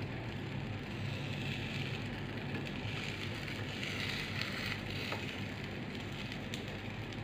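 Oat and banana pancake batter sizzling steadily in a nonstick frying pan over a high gas flame, with a low steady hum beneath. A spatula scrapes lightly under the pancake's edge a few times.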